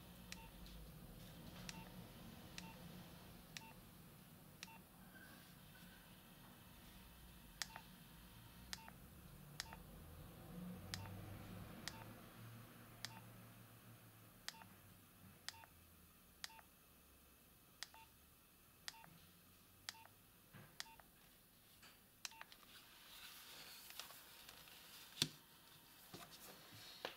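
Faint key presses on a Nokia 7250i mobile phone: a click with a short quiet beep, about once a second, pausing for a few seconds early on before carrying on.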